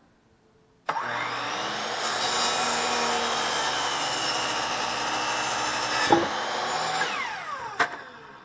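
DeWalt compound miter saw started about a second in, its blade cutting through a wooden board. Near the end the motor is switched off and winds down with a falling whine, with a sharp click just before it stops.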